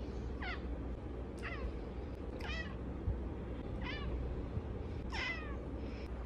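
A domestic long-haired cat meowing five times in short, high calls, each sliding down in pitch.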